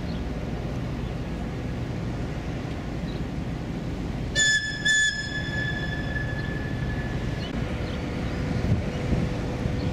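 Two short, high-pitched whistle blasts about halfway through, the second ringing on and fading over a couple of seconds, over a steady low rumble.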